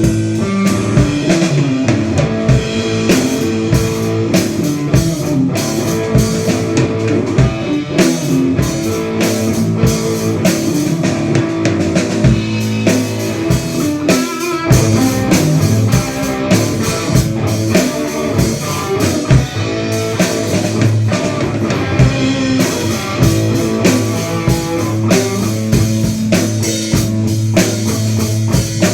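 A rock band playing live: electric guitar and drum kit, with a steady beat.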